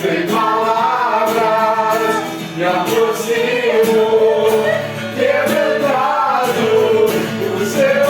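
A Portuguese worship song: voices singing a melody together over a steady instrumental backing.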